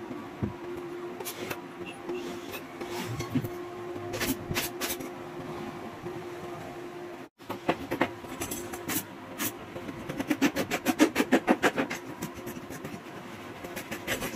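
Steady hum with scattered sharp clicks and knocks, then a fast even run of clicks, about eight a second, for a couple of seconds in the second half.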